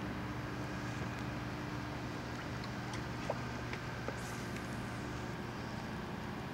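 A steady mechanical hum with several steady tones in it, with a couple of faint clicks about halfway through as a spinning rod is cast and the reel worked.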